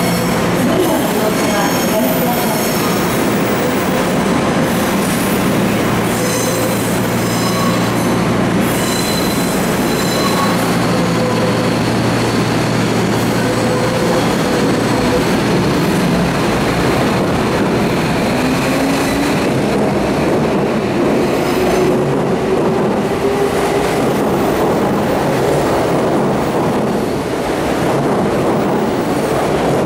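Tokyo Metro 13000 series electric train standing with a steady electric hum, then pulling out and running past close by; its motor whine rises in pitch as it gathers speed, over wheel and rail noise.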